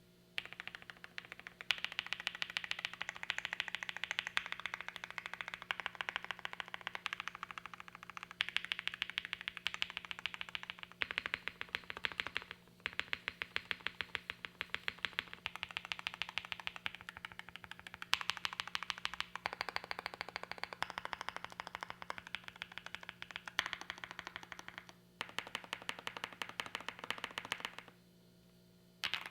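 Fast typing on a Mr. Suit gasket-mount TKL mechanical keyboard with Creamcicle linear switches on a POM plate: rapid keystrokes in long bursts broken by a few short pauses, with a poppy, clacky sound.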